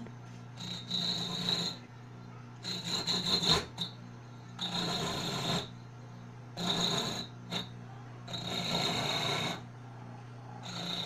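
Homemade electric coconut grater driven by a fan motor, humming steadily while a coconut half is pressed against its spinning serrated head. It makes repeated bursts of scraping, each about a second long, as the coconut meat is grated.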